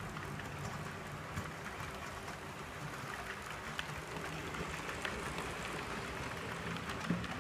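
Model freight train rolling past on its layout track: a steady rattling clatter of the cars' wheels on the rails under the low hum of the locomotive's electric motor, with occasional light clicks.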